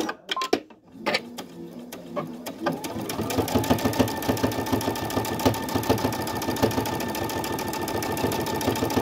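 Brother Innov-is V5 computerized sewing machine started from its start/stop button: after a short beep it begins stitching slowly about a second in and speeds up about three seconds in. It then runs steadily at a fast, even stitch rate, sewing a seam.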